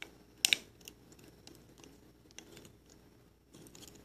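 Small sharp clicks of tweezers on a hard tiled floor: a loud double click about half a second in, then a few fainter ticks.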